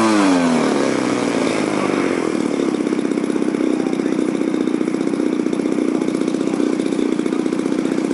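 Model airplane engine throttled back from a high-revving run: the pitch falls sharply in the first second, then it settles into a steady, pulsing idle.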